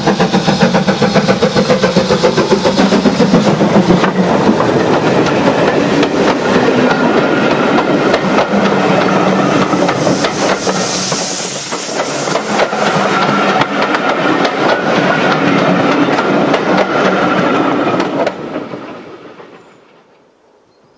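BR Standard Class 4 4-6-0 steam locomotive 75014 passing close by under steam, with quick regular exhaust beats over the first few seconds. Then its coaches roll past with wheels clicking over the rail joints, and the sound fades away near the end.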